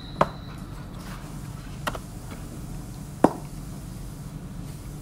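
Three sharp knocks of small objects being handled and set down on a desk, the third the loudest, over a steady low room hum.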